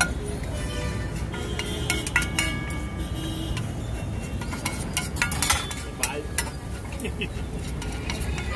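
Metal spatula scraping and clinking against a flat steel griddle as an egg-and-masala omelette mixture is spread and chopped, a run of irregular sharp clicks with brief metallic ringing.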